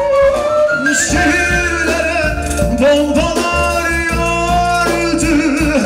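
A live band playing a Turkish pop song: a violin melody with vibrato over drums, with a male singer's voice.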